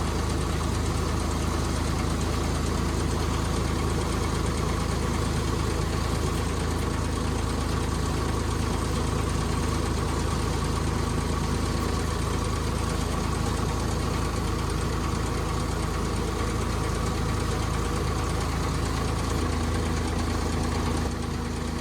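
R5 pile driver's engine idling steadily; its note shifts slightly about nineteen seconds in.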